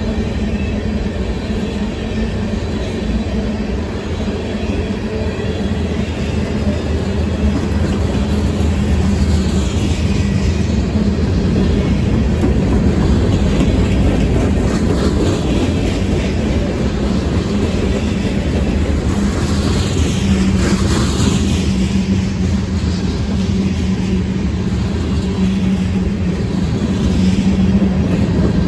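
Freight train cars rolling past at trackside: a continuous rumble and clatter of steel wheels on the rails under a steady low hum. A few high sounds glide downward about ten and twenty seconds in.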